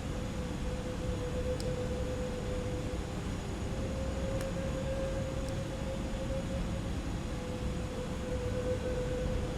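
Steady rushing background noise with a constant mid-pitched hum running through it and a few faint ticks.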